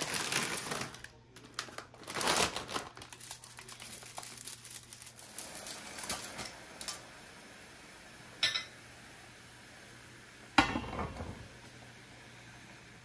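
Plastic bag of dried sweet potato vermicelli crinkling and rustling as the stiff noodles are pulled out, then quieter handling as they go into a pan of boiling water. About ten seconds in, a glass pot lid clatters down sharply onto the pan and rings briefly.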